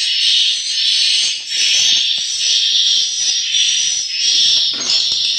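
Swiftlet roosting lure call ('suara inap') played through tweeter speakers: a dense, high chattering of many edible-nest swiftlets, swelling and fading in repeated waves under a second apart.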